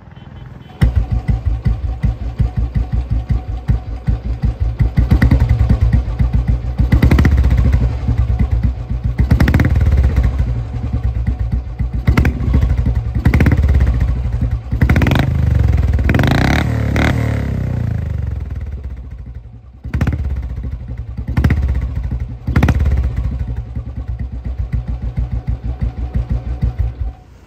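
The single-cylinder four-stroke engine of a 50-year-old Royal Enfield Bullet 350 catches about a second in and idles loudly through its original exhaust with the slow, even 'dug dug' thump. The throttle is blipped over and over, each rev rising and dropping back to idle.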